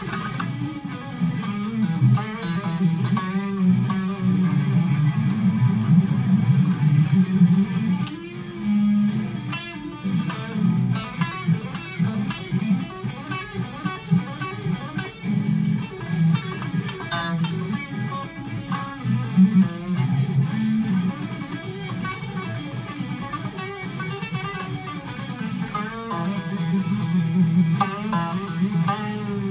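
Electric guitar music: a plucked guitar playing a busy, continuous line of notes without singing.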